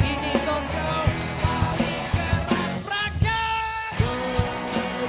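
A live pop-rock band plays a song with acoustic guitar, electric guitar, bass, drums and a sung vocal line. About three seconds in, the drums and bass drop out for under a second, leaving one held note, and the full band comes back in with a drum hit about four seconds in.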